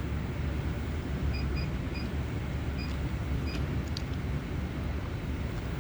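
Station ticket machine giving several short high beeps as its touchscreen buttons are pressed, with a few clicks, over a steady low rumble.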